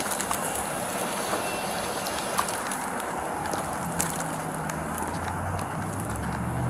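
Outdoor noise picked up by a police body-worn camera as the officer walks: a steady rustling hiss with scattered small clicks. From about four seconds in, a low vehicle-engine hum joins as a car comes close.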